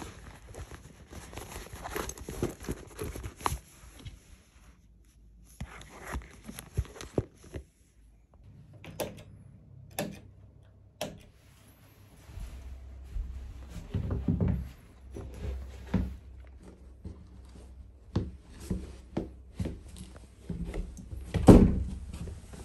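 A black leather bag being handled, with rustling and a few sharp clicks, then low thumps and shuffling as shoes are stepped into, the loudest thump near the end.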